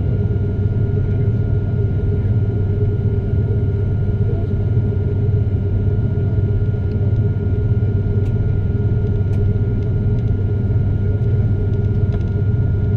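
Steady low rumble inside a jet airliner's cabin as it taxis, its engines running at idle, with a faint steady high whine over it.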